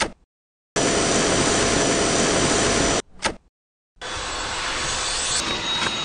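JIMMY JV53 handheld cordless vacuum cleaner running: a steady rushing of air with a thin high whine from the motor. It comes in two cut-in stretches of two to three seconds each, with dead silence and a brief click between them.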